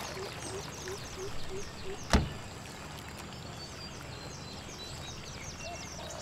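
A car door shut once: a single sharp thump about two seconds in. Outdoor background with many quick, high chirps throughout.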